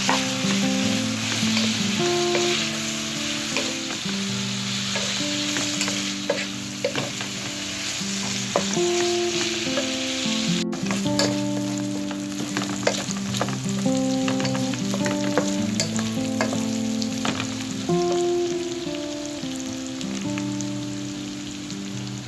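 Food sizzling as it fries in a pan, with a utensil clicking and scraping against the pan as it is stirred. The sizzle is strongest in the first few seconds. Background music plays underneath.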